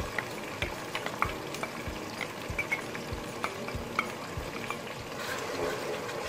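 Hot oil sizzling and crackling with scattered small pops as browned onions, tomatoes and freshly added ginger-garlic-green chilli paste fry in a pot. The sizzle grows a little louder near the end as a wooden spoon starts stirring the paste in.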